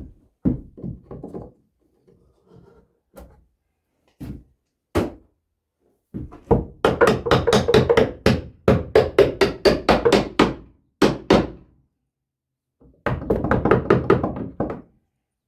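Wood being knocked: a few scattered single knocks, then quick runs of sharp knocks at about five a second, from about six to ten and a half seconds and again near the end.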